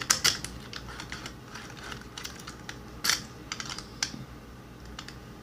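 Irregular small clicks of a key being turned in an ISEO R6 dimple lock cylinder, with louder clicks just after the start and about three seconds in.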